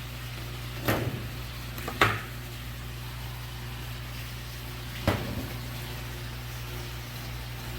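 Three sharp knocks, about a second in, at two seconds and at five seconds, the middle one the loudest, over a steady low hum.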